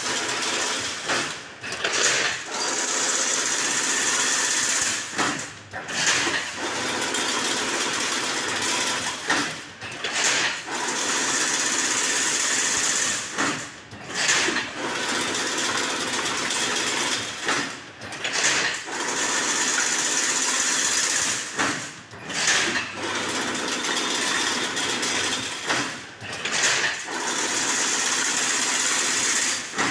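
Automatic single-wire chain-link mesh weaving machine running: a steady mechanical clatter with a hiss on top that drops out briefly about every four seconds, in a repeating working cycle.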